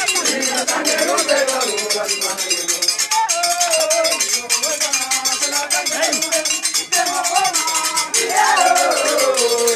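A crowd singing together over a rapid, steady clinking of metal percussion such as bells. The voices rise and fall and swell louder near the end.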